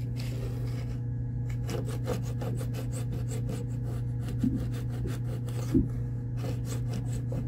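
Razor-blade scraper scraping old adhesive off a varnished wooden surface in quick short strokes, a rapid rasping that starts about a second and a half in.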